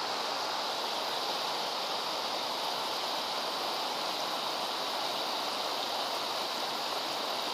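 Shallow mountain river rushing steadily over stones and cobbles.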